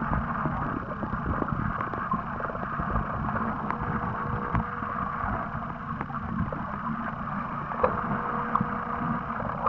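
Muffled underwater sound picked up by a submerged camera: a steady wash of water noise with low knocks and rumble. A faint steady hum comes in twice, about three and a half seconds in and again near the end.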